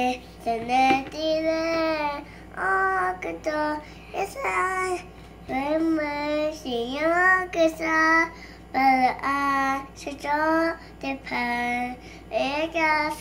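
A young girl singing a song solo and unaccompanied, in held, gliding phrases with short breaths between them.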